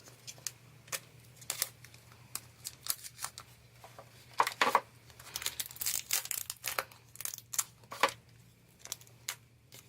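Packaging being torn open and crinkled by hand to unwrap a live stag beetle: irregular crackling and rustling, with a few louder tears about halfway through and near the end.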